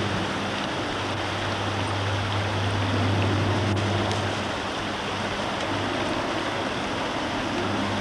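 Shallow stream running over stones, a steady rush of water, with a steady low hum underneath.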